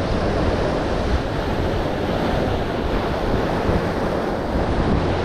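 Sea surf washing and breaking against the rocks of a jetty, a steady rushing wash, with wind buffeting the microphone in a low, fluttering rumble.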